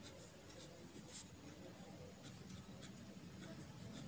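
Ballpoint pen scratching faintly across ruled notebook paper in short writing strokes, one a little louder about a second in.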